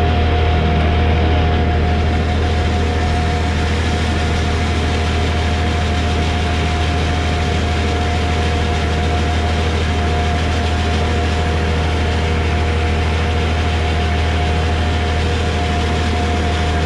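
Brassus H14 feed mixer wagon running while it unloads feed through its side discharge conveyor: a steady, loud machine drone with a constant high whine over a deep hum, unchanging throughout.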